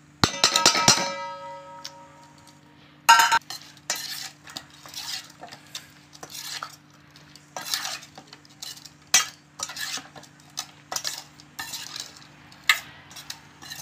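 Steel spoon knocked several times against a stainless steel bowl, ringing, then a loud clank. It goes on stirring a thick wet spice paste through drumstick pieces and potato, clinking and scraping against the bowl's sides about once a second. A steady low hum runs underneath.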